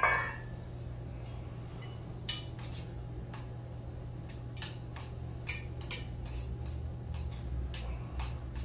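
A metal utensil clinking and scraping irregularly against a metal camping pot while stirring boiling ramen, the loudest clink a little over two seconds in, over a steady low hum.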